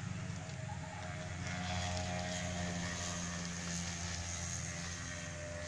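Steady drone of a small engine running at an even speed, with a few faint clicks.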